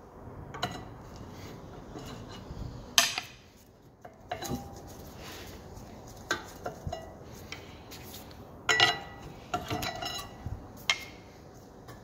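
Steel rear brake parts clinking and clattering as they are handled at the caliper and its carrier: a scattering of sharp metallic clinks that ring briefly, the loudest about three seconds in and a short cluster near nine seconds.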